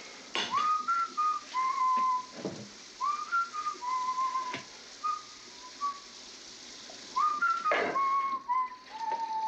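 A whistled melody in short phrases. Each note slides up and then holds with a slight waver, and a few sharp clicks fall in between.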